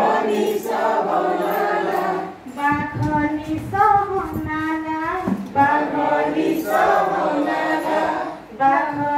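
A group of adult voices singing an Odia song in unison without instruments, led by a woman singing into a microphone. Phrases with one clear voice alternate with fuller phrases from the whole group, as in call and response.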